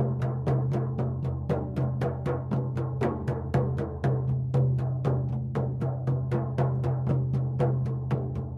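Shamanic hand drum beaten in a steady, even rhythm of about four to five strokes a second, its low boom ringing on under the beats: monotone drumming for a shamanic journey.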